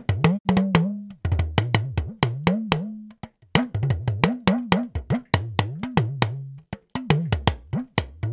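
Talking drum played in a fast rhythm: sharp stick strikes, each with a deep tone that bends up and down in pitch as the drum's tension is squeezed, with a brief pause about three seconds in. It is a studio recording played back through mixing EQ and compression.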